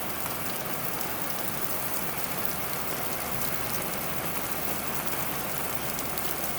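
Heavy rain falling steadily: an even hiss of downpour with many small drop ticks.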